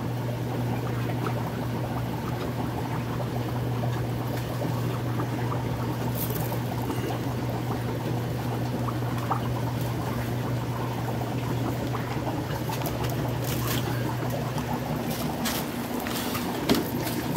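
Aquarium filter running: a steady trickle of water over a low, constant motor hum, with a few light knocks near the end.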